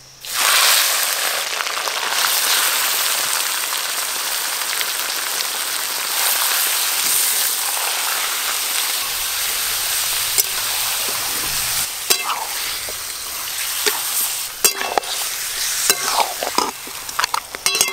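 Raw mutton pieces dropped into hot mustard oil and whole spices in a metal kadai, sizzling as the frying starts suddenly just after the start. In the later part the metal spatula clicks and scrapes against the pan as the meat is turned.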